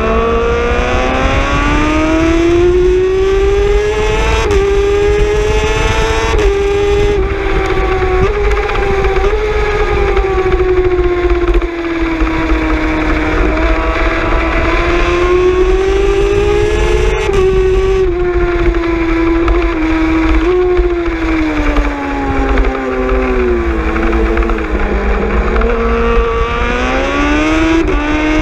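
Racing superbike's engine at high revs under hard riding: the pitch climbs steeply over the first few seconds with brief steps as it shifts up, then rises and falls with the corners, dipping about three-quarters through and climbing again near the end. Wind rumbles on the onboard microphone throughout.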